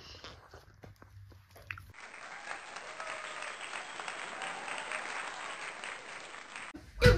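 A group of people clapping for about five seconds, with faint voices under it, after a couple of seconds of faint rustling and clicks.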